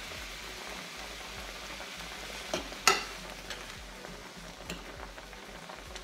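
Spinach sizzling in a hot frying pan as it is stirred with a fork, a steady hiss. A couple of sharp clicks of the fork against the pan come about two and a half to three seconds in.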